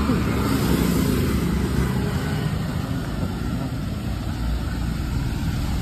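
Steady road traffic noise from scooters and motorcycles passing on wet tarmac.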